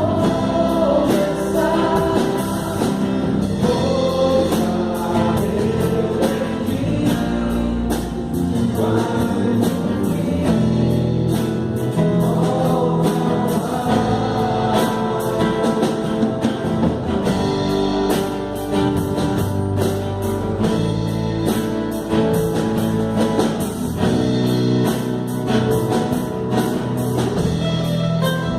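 A group singing a gospel song, accompanied by acoustic guitars.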